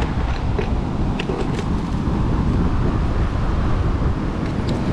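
Steady wind rumble on the microphone, with a few faint clicks of fishing-harness straps and clips being fastened to a big reel.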